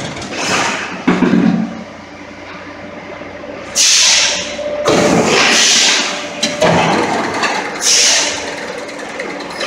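Concrete block vibropress line running through its cycle: a steady machine hum broken by sharp clanks and thumps, with three loud hissing bursts about four, five and eight seconds in.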